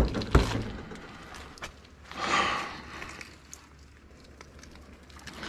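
Quiet scattered footsteps and handling noise on debris-strewn ground, with one breathy rush of noise about two seconds in.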